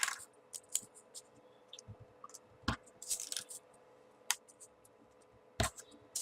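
Scattered small clicks and paper rustling as folded 3D origami paper pieces are handled and pushed into the model, with a couple of louder knocks.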